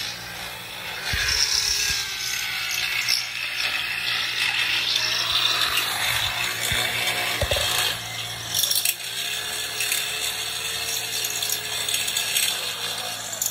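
Corded electric drill running continuously with its bit grinding into a shopping cart's steel frame, the motor pitch wavering as the load changes. It eases off briefly about eight seconds in.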